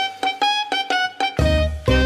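Background music: a quick run of picked notes on a plucked string instrument, with low bass notes joining in the second half.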